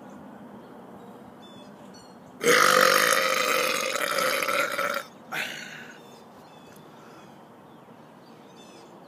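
A man's long, loud, deliberate burp lasting about two and a half seconds, followed by a short second burp.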